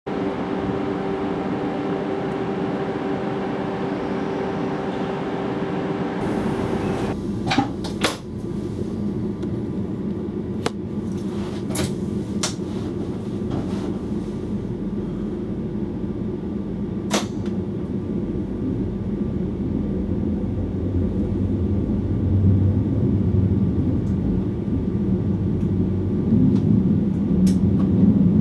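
Electric train heard from the driver's cab. A steady electrical hum cuts off about seven seconds in and is followed by a few sharp clicks. A low rumble then builds toward the end as the train gets under way.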